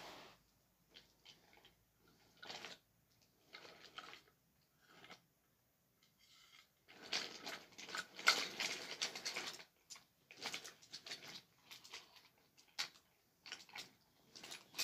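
Faint clicks and rattles of toy train cars being pushed and handled on a wooden train track, busiest in the middle.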